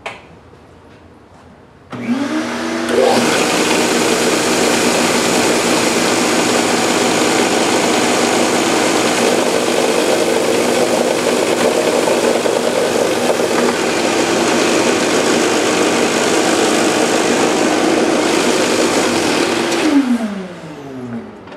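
Stationary bench belt sander with a 120-grit belt, switched on about two seconds in and rising to speed, then a loud, steady sanding noise as the end grain of a hardwood board is pressed against the running belt. Near the end it is switched off and the motor hum falls in pitch as it coasts down.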